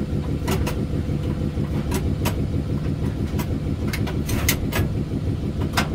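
EF63 electric locomotive's onboard machinery running with a steady low hum, heard inside the cab. Sharp clicks and knocks come every second or so as the cab control handles are worked.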